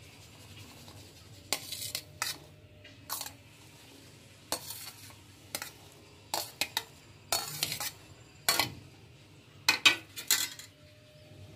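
A steel utensil scraping and clinking against a steel plate as blanched peas are pushed off it, about a dozen short irregular scrapes with the loudest near the end.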